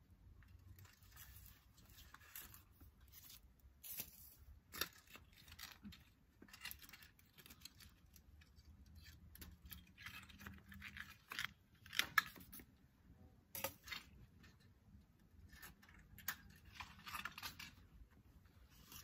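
Faint rustling and crackling of dry plant stems and wooden garden sticks being pulled out of a raised bed by gloved hands, with scattered sharp snaps and clicks. The loudest snap comes about twelve seconds in.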